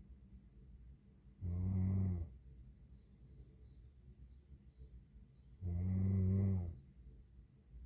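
A young woman snoring in her sleep: two snores about four seconds apart, each a low buzz lasting about a second.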